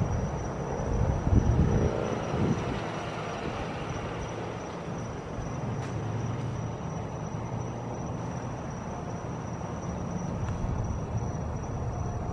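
Firefighting helicopter's rotors heard overhead: a steady mechanical din with a low rumble, loudest in the first two seconds.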